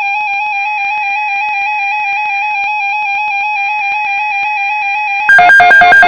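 Electronic alert tones: a run of quick, buzzy beeping notes stepping between pitches, then about five seconds in a much louder, harsher beeping of two tones alternating rapidly takes over.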